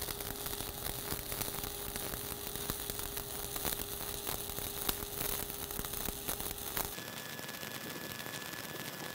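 Stick-welding arc of a 1/8-inch E7018 electrode at about 130 amps, crackling and sizzling steadily as a cap bead is dragged across the plate. About seven seconds in the sound thins out, the low crackle drops away and a faint steady high tone comes in.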